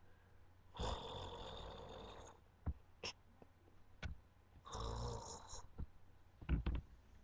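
A person snoring in sleep: two snores, the first about a second and a half long, the second about a second. Short clicks fall between them, with a cluster of clicks near the end.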